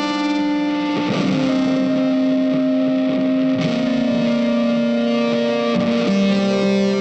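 Background music: distorted electric guitar holding long sustained notes, changing pitch every second or two.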